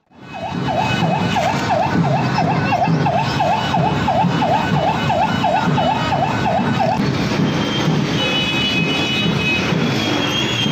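A rapidly warbling siren-like tone, dipping and rising in pitch about three times a second, over the dense din of a large street crowd. The warble stops about seven seconds in, and a few thin high steady tones sound near the end.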